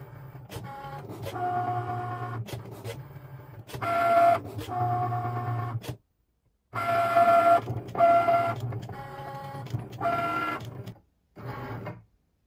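Cricut Maker 3 cutting machine working through its pen-marking and scoring pass: its motors whine at steady pitches over a low hum in stop-start runs of a second or two as the tool carriage travels and the mat feeds in and out. It stops shortly before the end.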